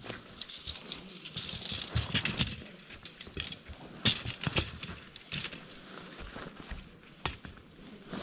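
Camping gear being handled while a tent is pitched: irregular rustling, rattling and small knocks, busiest about two seconds in and again around four to five seconds in.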